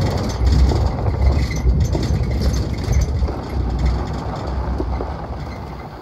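Vehicle rumble: a loud, uneven low noise of a motor vehicle, easing off toward the end.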